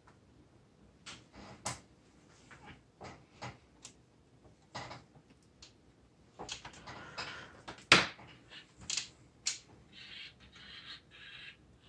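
Hands working on a plastic GM truck instrument cluster while the gauge needles are fitted back on their shafts: scattered small clicks and taps, the sharpest about eight seconds in, then soft scraping near the end.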